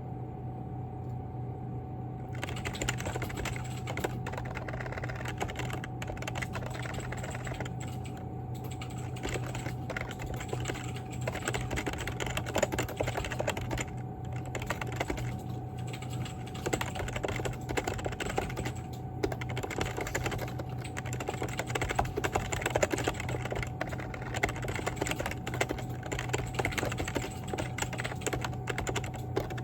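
Rapid typing on a computer keyboard, a quick run of key clicks that starts about two seconds in, over a steady hum.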